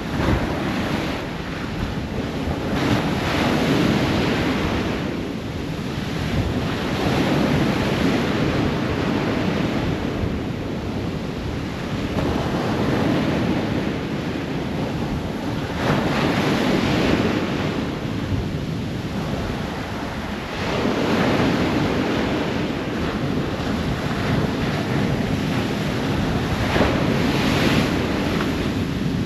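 Ocean surf breaking on a shore: a continuous rushing wash that swells and falls away every few seconds as each wave comes in.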